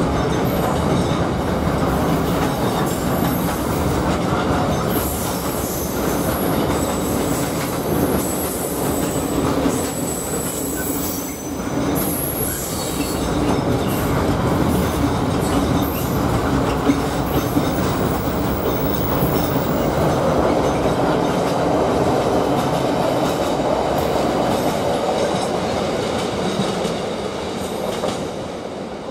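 A train running on the line: steady wheel-on-rail noise with thin, high-pitched squeals from about five to twelve seconds in, dying away near the end.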